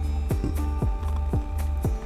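Background music with a steady electronic beat, a kick drum about twice a second over bass and held tones.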